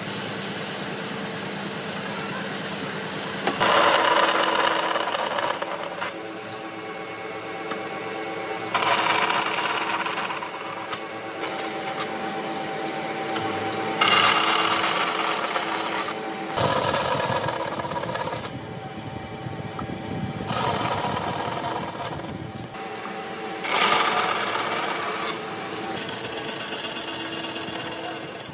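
Electric woodworking power tools running on wood, heard as a series of short clips that change abruptly every few seconds, with a steady motor hum and several louder noisy spells.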